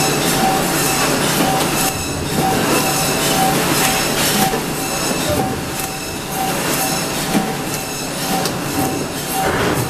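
Automatic poultry cut-up line running: steady, loud machinery noise with a short, even squeak repeating about two to three times a second.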